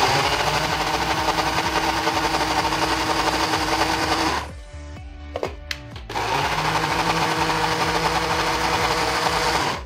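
Small electric grinder's motor running hard as it grinds roasted peanuts into paste, in two runs of about four seconds each. Each run spins up with a short rising whine, and there is a brief pause with a couple of clicks between them.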